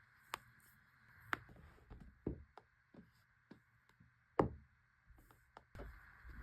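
Sharp clicks and pops from a chiropractic adjustment, a scattered series of short knocks with the loudest about four and a half seconds in.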